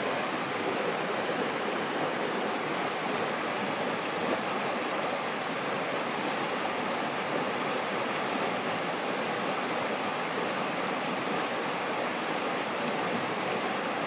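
Whitewater rapids pouring through the openings under a low concrete bridge: a steady, unbroken rush of water.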